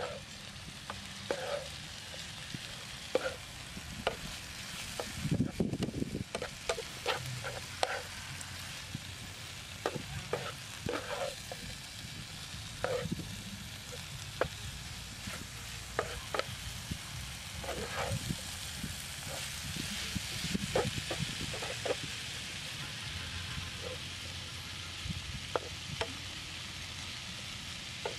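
Vegetables stir-frying in a frying pan on a portable gas stove: a steady sizzle, broken by many short clinks and scrapes of a cooking utensil against the pan, busiest in the middle stretch.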